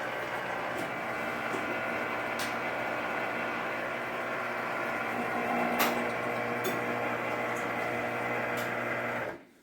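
Electric citrus juicer's motor running steadily with a humming tone and a few light clicks, then stopping abruptly near the end.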